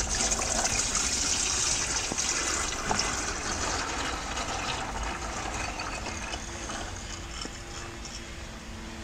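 Old engine oil gushing from an opened drain plug on a Porsche 996 Turbo's dry-sump oil system and splashing into a drain pan, the flow slowly easing off.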